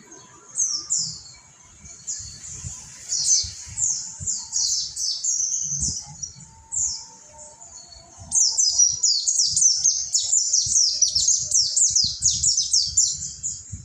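Mountain white-eye (pleci Monty) singing: quick high chirps that each sweep downward, spaced out at first, then a dense, fast run of chirps from a little past halfway.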